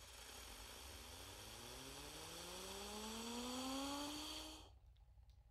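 Cartoon UFO "zip whistle" sound effect: a hissing whoosh with a bright, steady shimmer above it. From about a second in, a whistle-like tone rises slowly in pitch. It all cuts off abruptly about a second before the end.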